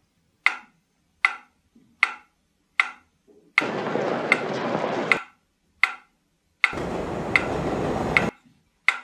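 A sharp tick repeats about every 0.8 seconds, like a clock. Twice it is overlaid by a block of rushing noise that cuts in and out abruptly, from about three and a half seconds and again near seven seconds. The second block is deeper and rumbling.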